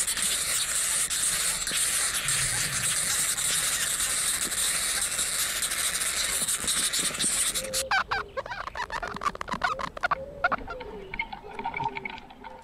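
A loud, steady hiss that cuts off suddenly about eight seconds in, after which ducks and other birds make short calls and chirps.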